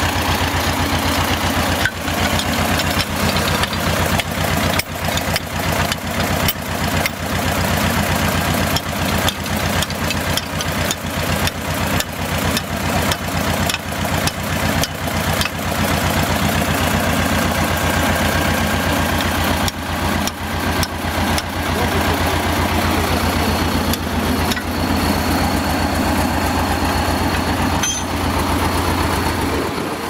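An old wheeled tractor's diesel engine idling with a steady low hum and a heavy, uneven knocking over it that eases off in the last several seconds.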